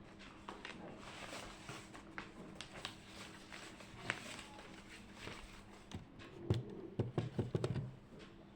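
Scattered light taps and clicks, then a quick run of louder knocks and thumps about three-quarters of the way in, over a faint steady hum.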